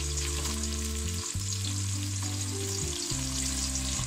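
Eggplants and potato slices shallow-frying in hot oil in a metal pot: a steady crackling sizzle. Low held background-music notes change underneath.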